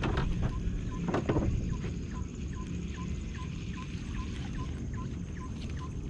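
Spinning rod being cast: two quick swishes within the first second and a half. Under them is a steady open-air background, with a faint short chirp repeating about two to three times a second.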